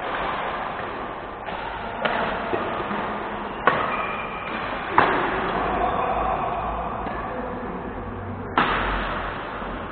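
Badminton rackets striking a shuttlecock during a rally: four sharp cracks at irregular gaps, echoing in a large sports hall over a steady din from the hall.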